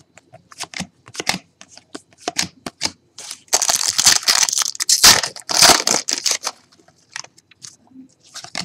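Trading cards being handled and flipped through quickly, with sharp clicks and snaps and a dense rustling stretch of about three seconds in the middle.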